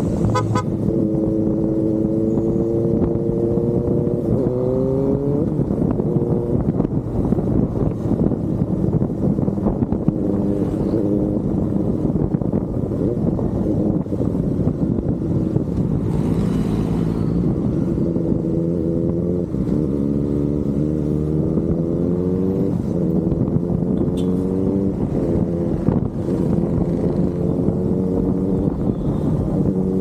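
Kawasaki Ninja ZX-4RR's 399 cc inline-four engine running hard on the road. Its note climbs and falls back in pitch several times as the bike accelerates through the gears.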